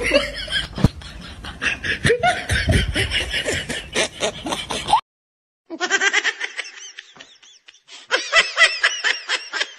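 Laughter in quick, repeated bursts, broken by a short silence about five seconds in.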